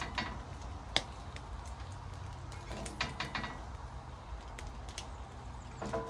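Cooking sounds at an outdoor grill: irregular sharp clicks and light knocks over a steady low rumble.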